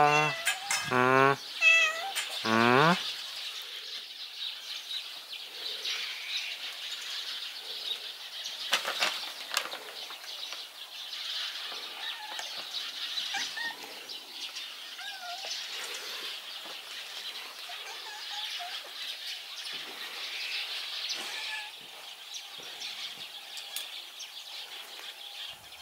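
A domestic cat meows several times in the first three seconds, each call gliding in pitch. After that there is a steady high hiss with faint rustling and small chirps.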